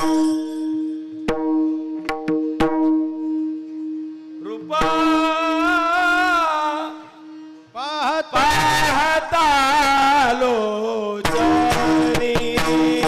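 Devotional kirtan singing: a solo voice sings two long, ornamented, wavering phrases over a steady held drone note. There are a few sparse drum strokes in the first few seconds, and the drums and instruments come back in fully near the end.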